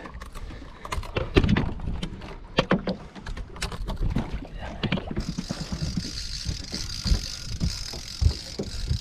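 Knocks and thumps of handling on a small fishing boat, over a low wind rumble on the microphone. About five seconds in, a steady high hiss starts and runs on, with fewer knocks.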